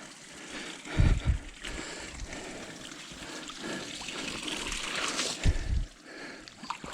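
Small stream of runoff water trickling and splashing down across the trail, with two low thumps, about a second in and again near five and a half seconds.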